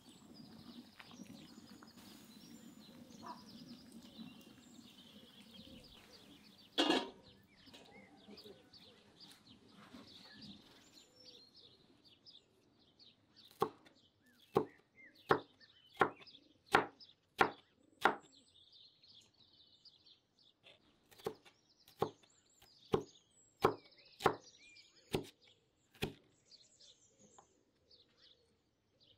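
Chopping strokes against a wooden board, most likely a knife cutting through food onto the board. They come in two runs of about seven strokes, each stroke a little under a second apart, with a single louder knock before them. Birds chirp faintly in the background.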